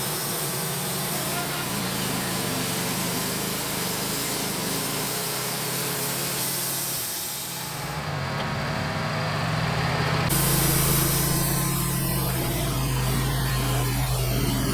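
Portable band sawmill running, its blade cutting through a maple log with a steady engine hum under the sawing noise. The sound changes abruptly about eight and ten seconds in.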